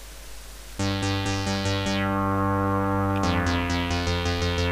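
LMMS Triple Oscillator software synth ('Analogous' instrument) sounding a held note, starting about a second in, with a regular pulsing in its upper tones; about three seconds in it moves to a different pitch and keeps sounding.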